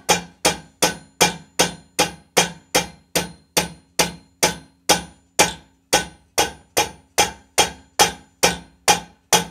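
Hammer blows striking metal in a steady, even rhythm of about two and a half blows a second, with a faint ringing that lingers between blows. The blows are being used to knock loose a seized threaded pipe fitting.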